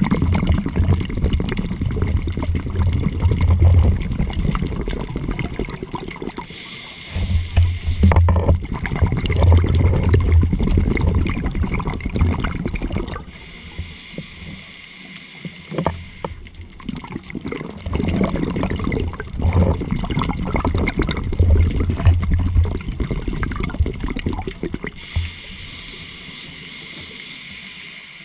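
A scuba diver's exhaled bubbles bubbling and gurgling from the regulator underwater, in three long bursts of about five seconds each, with quieter pauses between them for the inhale.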